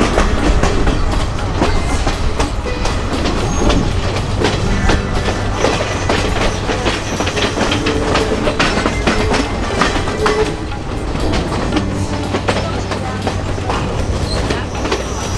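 Sri Lankan hill-country passenger train running, with a steady low rumble and many irregular clicks and rattles from the wheels and carriages on the track.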